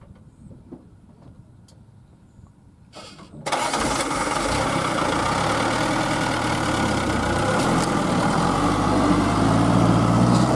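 Heavy diesel engine of a dump truck or excavator starting up about three and a half seconds in and running loudly, its pitch rising slightly near the end, then cutting off suddenly.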